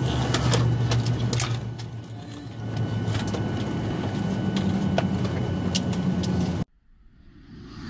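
Cabin noise inside a Boeing 737 MAX 9 on the ground: a steady low drone with scattered clicks and knocks, the drone stepping up slightly in pitch about halfway through. It cuts off abruptly near the end, and a whoosh begins to swell.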